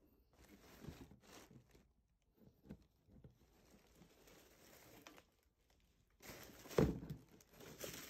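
Faint rustling and crinkling of a fabric blazer and paper packing being handled in a cardboard box, in short irregular spells; the loudest rustle comes about seven seconds in.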